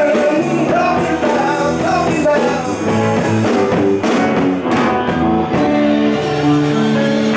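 Live band playing rock-style music, with guitars over a drum kit whose cymbal keeps a steady beat, dropping out for a couple of seconds past the middle.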